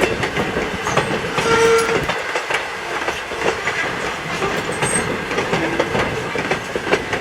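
Steam train rolling past at a grade crossing, its wheels clicking steadily over the rail joints, with a brief tone about a second and a half in.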